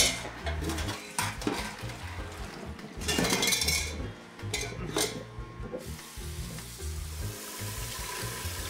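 Water splashing and dripping in a sink as handfuls of boiled wild greens are lifted out of their cooking water into a plastic colander and squeezed, in several short bursts. From about six seconds in, a steady rush of running water from the tap.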